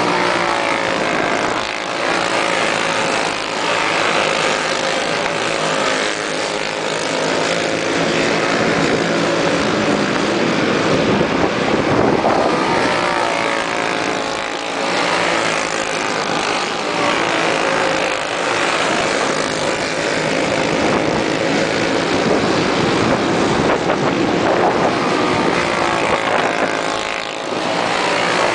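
Racing kart engines of the Briggs & Stratton Animal class running hard, several at once, with their pitch rising and falling over and over as karts pass and go through the turns.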